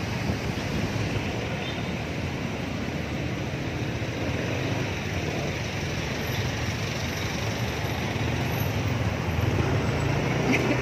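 Steady road and traffic noise heard from a moving Yamaha NMAX scooter in dense city traffic. The scooter's engine and the surrounding vehicles blend into one even rush, with no single event standing out.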